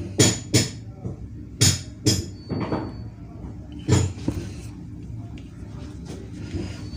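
Sharp clicks and taps of hands and a tool working wire coils into the slots of a compressor motor stator, five of them in the first four seconds, then quieter handling.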